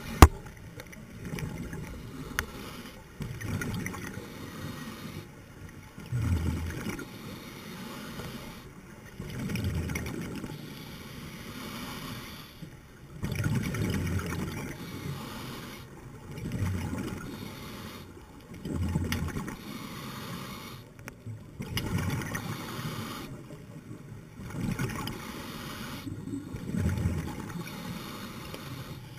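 Scuba diver breathing through a regulator underwater: a surge of exhaled bubbles about every three seconds, with a steady wash of water noise between breaths.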